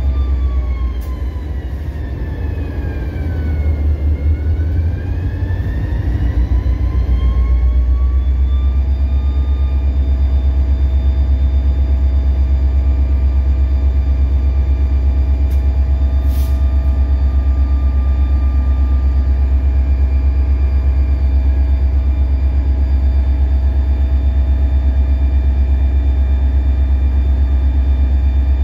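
EMD SD40-2 diesel-electric locomotive under power, heard from inside the cab: a steady deep engine rumble with a whine that falls in pitch over the first few seconds, then ramps back up and holds steady from about nine seconds in.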